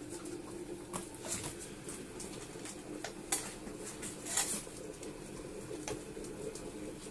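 Five-week-old puppies moving about on a bare tiled floor: scattered clicks and taps of claws and paws, with a few sharper knocks around three and four seconds in.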